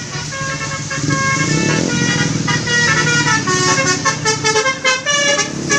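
Tour bus's telolet basuri musical horn playing a fast tune of short notes that step up and down in pitch, starting about a second in, over the bus engine running.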